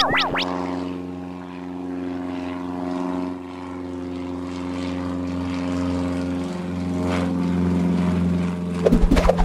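Cartoon propeller-airplane engine sound effect: a steady droning hum of several held tones, growing a little louder toward the end. A few short squeaky blips come near the end.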